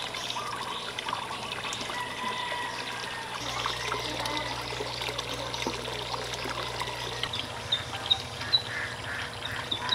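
Water pouring from a pipe into a fish tank, a steady trickling splash. A few short high chirps come near the end.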